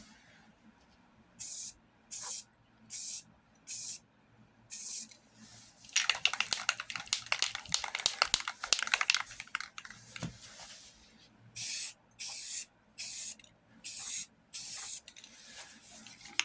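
Aerosol can of Rust-Oleum Painter's Touch sandable primer spraying in short hissing passes: five quick bursts, then about four seconds of denser, crackly spraying, then five more quick bursts.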